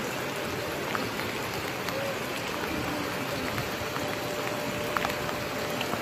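Steady, even rushing of the swollen Bermejo River in flood, fast brown water carrying debris, with a faint, steady siren or alarm tone under it.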